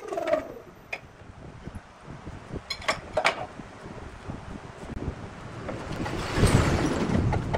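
Wood lathe coasting down after being switched off, its hum falling in pitch and fading within the first half-second. About three seconds in come a few sharp metal clinks, and near the end a loud, rough rubbing noise as the wood blank is handled on the lathe.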